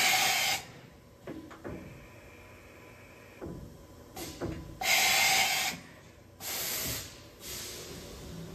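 Hardinge VMC-600's 20-tool carousel tool changer running a tool change. There are sharp bursts of air hissing as the spindle releases and clamps the tool, clunks as the carousel moves, and a short whine in between.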